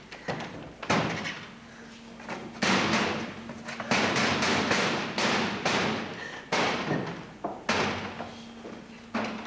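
Irregular heavy thumps and knocks, about one or two a second: feet stamping on a wooden stage floor, over a faint low hum.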